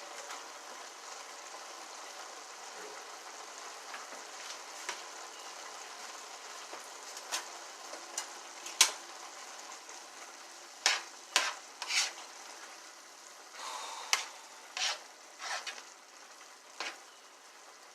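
Food sizzling steadily in a frying pan while a utensil stirs it. Sharp clinks and scrapes against the pan come more and more often through the second half.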